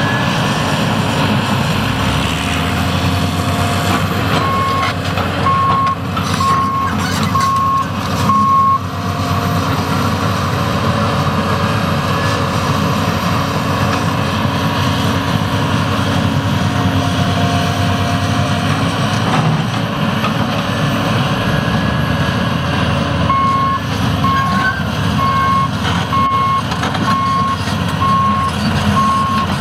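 John Deere 330C LC hydraulic excavator's diesel engine running steadily under load while digging. A backup alarm beeps about one and a half times a second, first for a few seconds near the start and again over the last six seconds, with a few knocks during the first run of beeps.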